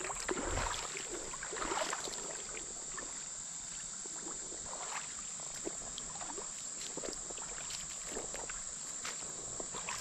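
Insects buzzing steadily at a high pitch, under scattered rustling and steps that are busiest in the first two seconds.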